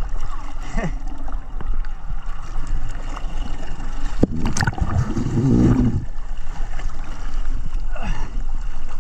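Seawater sloshing and gurgling around a boat's stern, heard from a camera at the waterline, with a louder rush of water about four to six seconds in as the camera is washed over.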